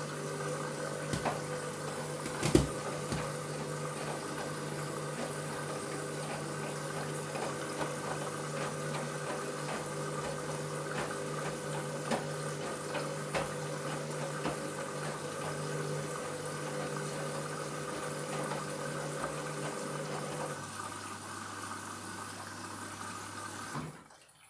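Washing machine motor running, turning the drum with a steady hum and water sloshing. There is a sharp knock about two and a half seconds in and a few lighter clicks. Near the end the hum drops lower and then stops as the drum winds down.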